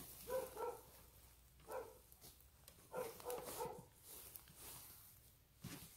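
Several village dogs barking, faint and repeated in short runs of two or three barks.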